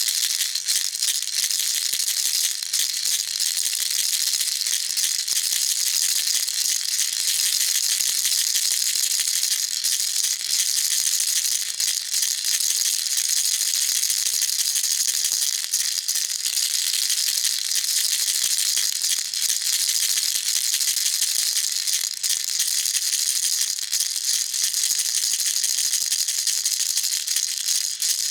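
Baby rattle shaken continuously: a dense, steady hiss of small beads or pellets clattering, high-pitched, with no pauses.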